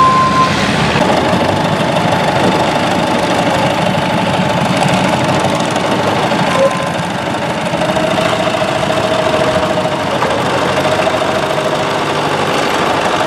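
Long-tail boat engines running under load, driving propellers on long shafts. The sound changes abruptly about halfway through, to an engine with a steady whine over its running.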